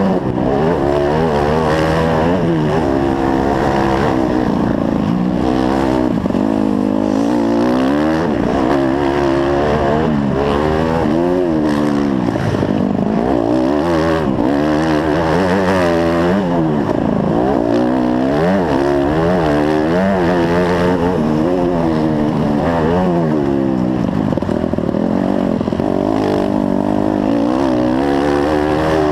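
Dirt bike engine running hard, heard close up from the bike itself, its pitch rising and falling over and over as the throttle is opened and shut through the track's jumps and turns.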